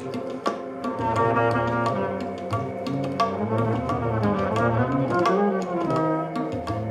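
Live small-band music: a double bass holding long low notes, with higher instrument lines above and a stream of drum and cymbal strikes.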